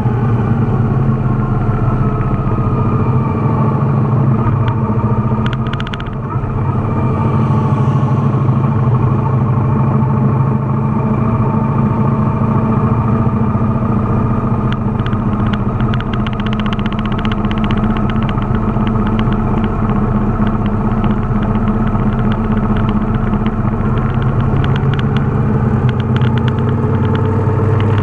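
Motorcycle engine running steadily at riding speed, its note easing briefly about six seconds in, with light clattering in the second half.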